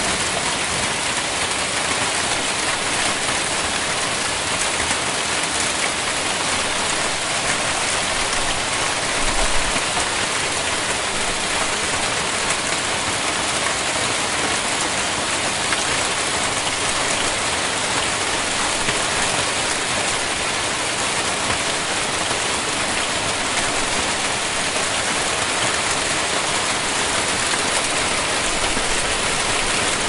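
Hail falling steadily: a dense, even patter of countless small hits over a constant hiss.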